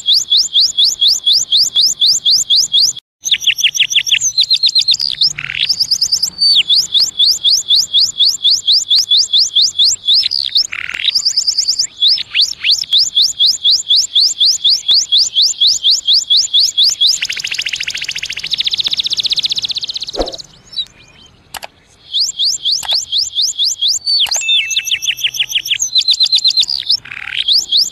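Domestic canary singing, with rapid runs of repeated high notes and rising and falling whistled glides. A buzzy rolling passage comes about two-thirds of the way through, then the song breaks off briefly before the trills resume.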